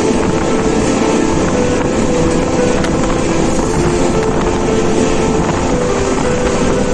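Moving passenger train running: a loud, steady rumble and rush of wheel and track noise.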